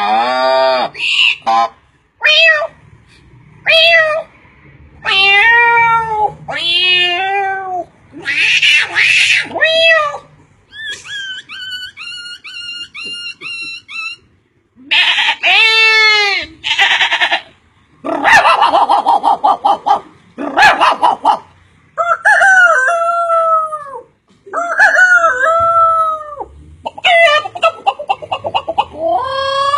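A string of different animal calls, one after another, each lasting a second or two with short gaps between. Around the middle comes a quick, even run of short chirps, about three a second.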